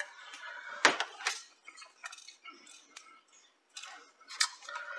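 Light clicks and clinks of small hard objects being handled on a workbench, with two sharper clicks about a second in.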